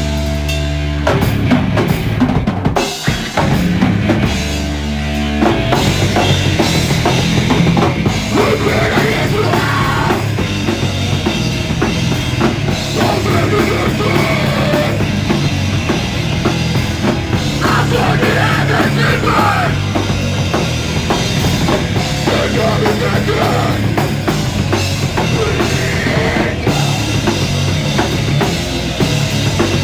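A loud live rock band: distorted electric guitar, bass and drum kit, recorded through a cellphone's microphone. It opens with heavy held chords broken by short stops, and the full band kicks in at a driving pace about five seconds in.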